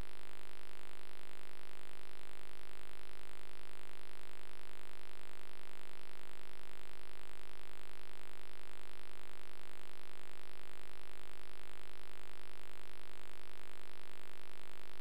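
A steady electrical hum with a constant tone over faint hiss.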